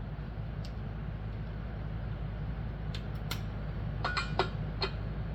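Metal parts and hand tools clicking and clinking a few times during disassembly of a small engine, some of the clicks ringing briefly, over a steady low hum.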